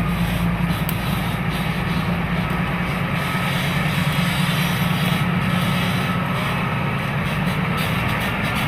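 Bulldozer's diesel engine running steadily, a deep, even drone.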